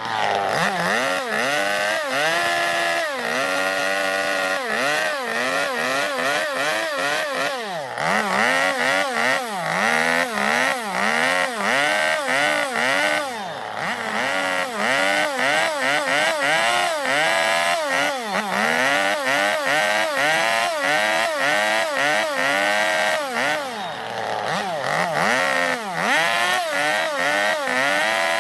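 Two-stroke chainsaw running under load as it carves out a zelkova-wood bowl, its engine pitch rising and falling over and over, about once a second, as the chain bites into the wood and eases off. The engine drops back briefly three times.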